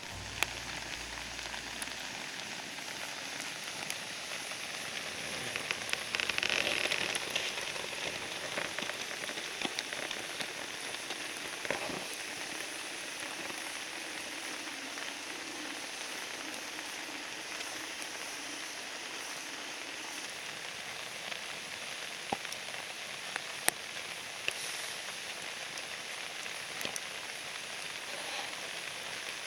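Wood fire burning with a steady hiss and occasional sharp crackles and pops, a little louder about six seconds in.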